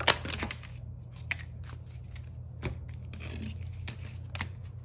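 A deck of oracle cards being shuffled and flipped through by hand: an irregular run of short papery clicks and snaps, the sharpest right at the start and again about four seconds in.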